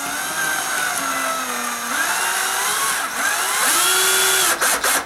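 A 12-volt cordless drill driving a self-tapping screw into a stucco wall: the motor whines, its pitch rising and falling several times as the speed changes under the trigger and load. The screw goes through the stucco without biting into anything firm behind it.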